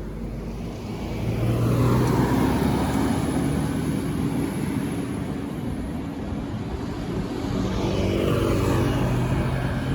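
An intercity bus driving past on the road: its engine running with a steady hum and tyre noise swelling about a second in, then the engine note coming up strongly again around seven to nine seconds in.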